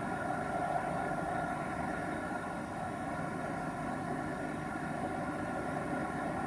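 Steady, eerie distant drone: several held tones over a low rumble, unchanging throughout, from an unidentified source.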